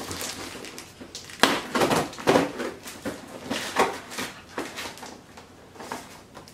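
Brown paper wrapping of a parcel rustling and crackling as it is handled and cut open with a knife, in irregular bursts, loudest in the first half.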